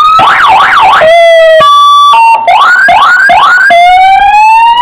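Loud electronic siren fitted to the tractor and worked from a handheld controller, cycling through its tones. It goes from a rising wail to a fast up-and-down yelp, then short steady tones, then three quick rising whoops, and ends on a slow rising wail again.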